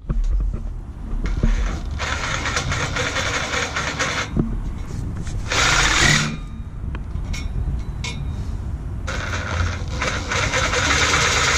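Cordless reciprocating saw cutting through a 4-inch metal exhaust tailpipe. It runs in bursts: for a couple of seconds starting about two seconds in, briefly and loudest near six seconds, and again from about nine seconds on.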